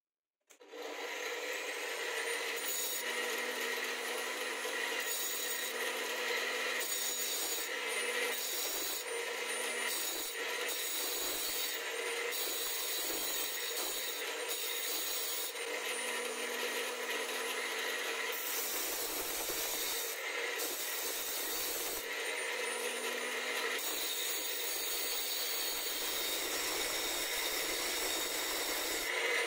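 Angle grinder switched on about half a second in, then running steadily with a few held tones in its whine. A 9 mm steel twist drill bit held in a wooden jig is ground against its spinning disc to sharpen the bit's tip.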